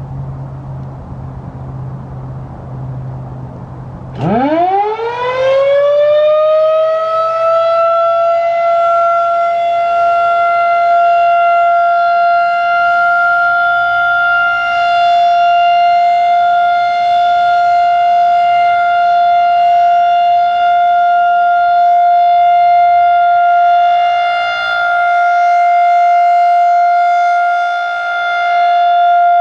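Federal Signal 2001-130 electromechanical outdoor warning siren starting up about four seconds in, over a low background rumble. Its wail climbs steeply in pitch, then holds one steady tone for the Alert signal, swelling and dipping slightly in loudness.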